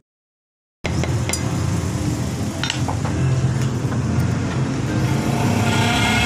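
A spoon clinking a few times against a plastic cup as it stirs a sauce, over a steady low hum. The sound drops out for under a second at the start.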